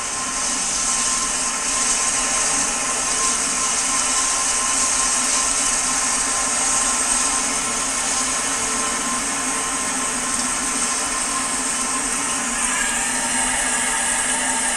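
Steady hissing test noise from a sound source inside an open, sound-deadened steel bucket, with a few steady tones beneath it, giving a control reading of about 88 dB on a sound level meter. Its character shifts slightly about twelve seconds in.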